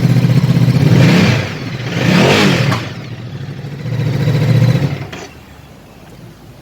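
Ducati Multistrada 1200's V-twin engine idling, blipped once so it rises and falls in pitch a little over two seconds in, then idling again before cutting off about five seconds in.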